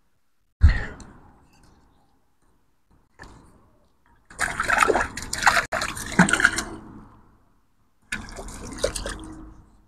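Water splashing and sloshing in several separate bursts, with a sharp thump about half a second in and the longest, loudest splashing from about four to seven seconds in.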